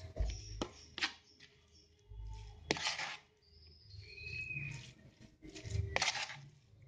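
A metal spoon stirring and scraping a crumbly mashed tofu and grated coconut mixture in a plastic bowl, with a few sharp knocks of the spoon against the bowl, the loudest about 1 s in, near 3 s and about 6 s in.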